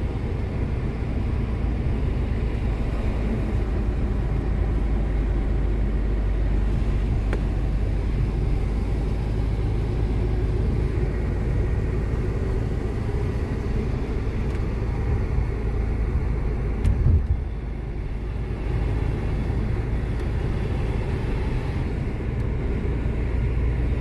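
Road and engine noise heard inside a moving car's cabin: a steady low rumble of tyres and engine, with one brief louder low bump about two-thirds of the way through.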